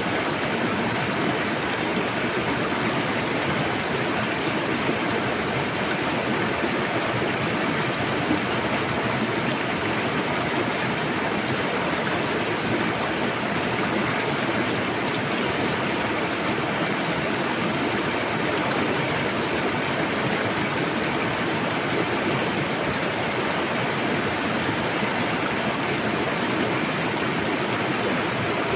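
A fast-flowing river rushing steadily over rocks, a constant even rush of water.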